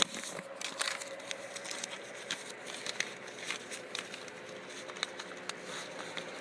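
Rummaging for coins: a run of small irregular clicks and clinks as coins and loose items are handled, with some crinkling.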